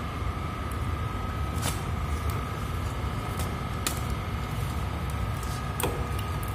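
Steady low hum with a faint constant high tone underneath, and three light clicks as a plastic electrical enclosure is handled and pressed against a metal freezer cabinet.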